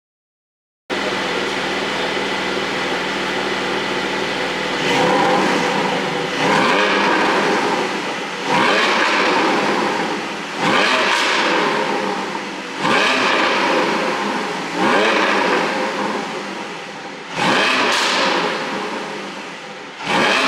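Porsche 718 Boxster GTS's 4.0-litre flat-six, fitted with a pop-and-bang ECU tune, starts idling about a second in. After a few seconds it is blipped about eight times, roughly every two seconds, each rev falling back slowly with some sharp cracks on the way down.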